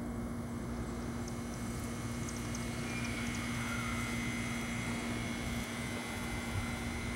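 Steady low hum over faint outdoor background noise, with a few faint high ticks near the middle.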